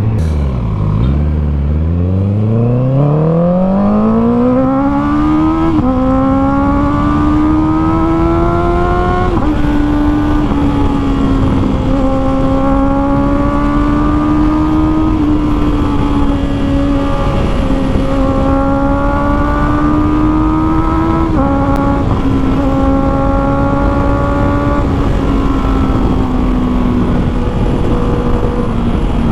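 Honda CB650R's 649 cc inline-four engine through an Akrapovic full exhaust system, heard while riding. The pitch dips about a second in, then climbs through two upshifts and settles into steady cruising with small rises and dips. A steady rush of wind and road noise runs underneath.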